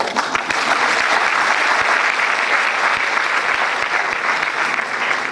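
Audience applauding, a dense steady clapping that starts suddenly and eases slightly near the end.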